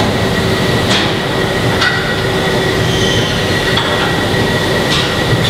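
Plastic injection moulding machine running while the mould is closed and the hot plastic is injected and cooled: a steady loud mechanical noise with a constant high whine and a lower hum, and a few light clicks about a second in, near two seconds and near the end.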